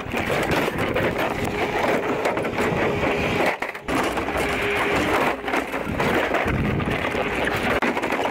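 Scrap sheet steel, including a furnace cabinet, being dragged and tipped out of a pickup bed: continuous scraping and clattering metal with many small knocks, briefly easing about three and a half seconds in.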